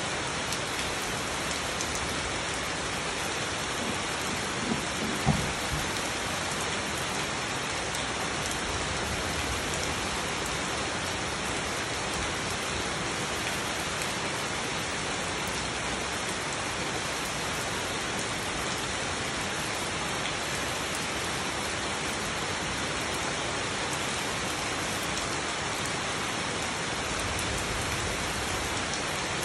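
Steady rain falling on broad leaves and a muddy garden path, an even hiss of drops throughout. Two short knocks stand out about five seconds in.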